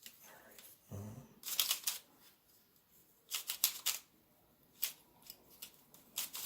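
YuLong V2 magnetic Pyraminx being turned by hand, giving quick clicking turns in short bursts. There is one cluster of clicks about 1.5 seconds in, another around 3.5 seconds, and single clicks near 5 seconds and near the end.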